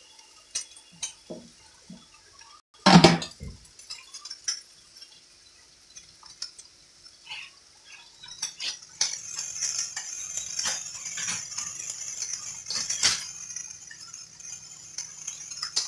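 Dishes and utensils clinking and knocking, with one loud knock about three seconds in. From about halfway through, a steady high hiss sets in with a faint low hum under it.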